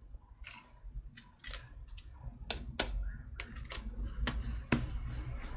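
Small plastic slime tubs and their lids clicking and snapping as a lid is pressed on, a string of about nine sharp, irregular clicks.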